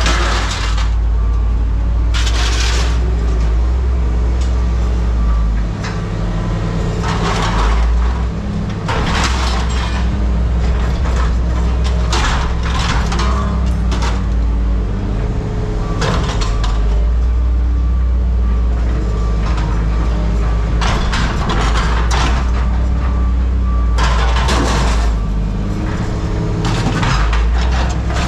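Heavy diesel machinery running steadily with a deep drone, with short loud rushes of clatter and noise every few seconds, typical of scrap metal being handled.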